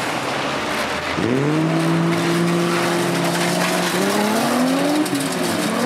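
Banger racing car engine revving hard: it climbs sharply about a second in, holds at high revs, then climbs again near the end, over the noise of other cars on the track.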